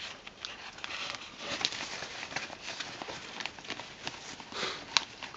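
A plastic bag and a satin cloth wrapped around a pair of headphones rustling and crinkling as hands work them open, with many small irregular clicks and a sharper click near the end.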